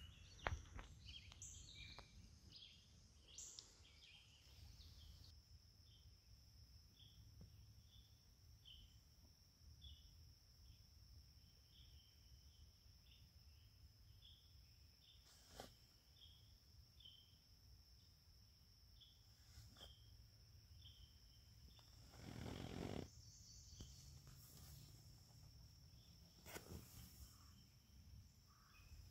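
Faint evening insect chorus: a steady high-pitched trill that sets in about five seconds in, with short chirps repeating about twice a second over it. A few soft clicks and a brief rustle come about three-quarters of the way through.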